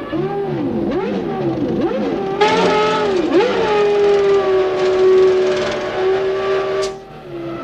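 1995 Formula One car engine, its pitch swooping up and down through gear changes. About two and a half seconds in it gets louder and holds a steady high note at full throttle, then cuts off sharply near the end.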